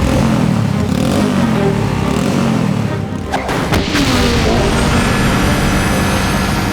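Cartoon action soundtrack: a loud mechanical rumble with music over it, two sharp crashes a little over three seconds in, and a rising whine near the end.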